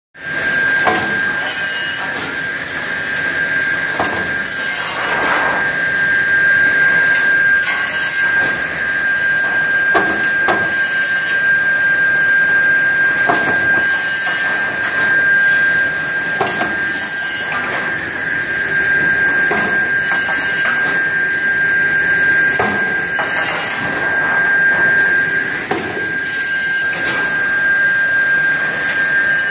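Precision end trim saw running with a steady high whine, with short, sharp cutting and knocking sounds every second or two as boards pass through on the chain feed.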